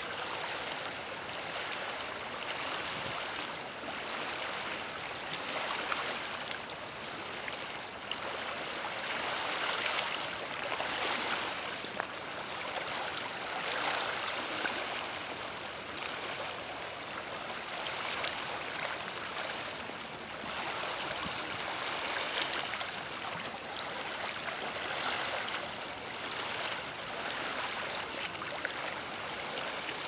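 Small waves lapping over the stones of a pebbly lakeshore in shallow water: a steady watery wash that swells and eases every few seconds.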